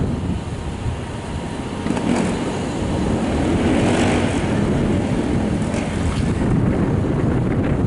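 Steady low rumble of an R160 subway train approaching on elevated track, with wind buffeting the microphone. It swells slightly a couple of seconds in, with a few faint clicks.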